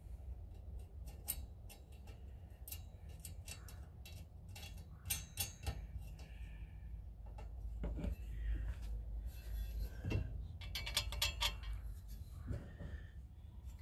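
Small clicks and light metal taps as a bolt and plastic spacer are fitted by hand into a pivot bracket of a CostWay two-seat patio glider's steel frame, with a quick run of clicks near the end, over a low steady rumble.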